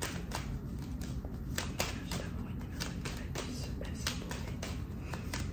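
A tarot deck being shuffled by hand, the cards slipping and snapping against each other in a run of light clicks, about four a second.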